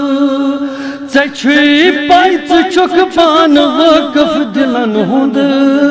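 A man chants a devotional manqabat. He holds a long note with a vibrato, then about a second in breaks into quick phrases of ornamented turns that rise and fall in pitch.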